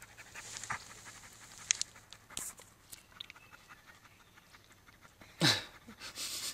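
A German Shepherd–Bernese Mountain Dog mix panting with its mouth open. There are a few small clicks, and near the end one short, loud sound that falls in pitch.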